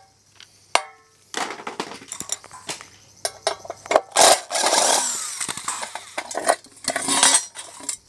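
Screwdriver backing screws out of the aluminium base of an electric hot plate, in irregular bursts of grinding and scraping with sharp metal clinks. The work is loudest about four seconds in and again near the end.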